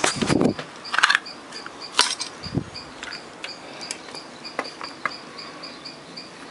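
Knocks, clicks and rattles from an amplifier circuit board and parts being handled on a workbench, loudest in the first two seconds. A faint high chirp repeats about four times a second throughout.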